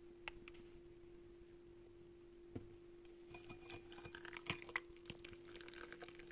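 Faint clinks and taps of a tea cup being handled, thickest in the middle of the stretch, over a steady low hum.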